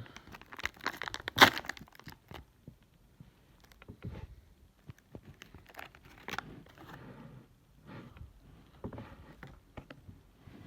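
Plastic packaging crinkling and tearing as a slime egg is handled and opened, in irregular crackles and rustles with one sharp, loud rip about a second and a half in.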